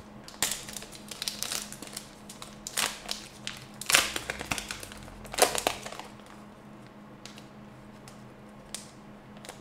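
Plastic crinkling and rustling as trading cards and their packaging are handled, in several bursts over the first six seconds, then only faint handling noise.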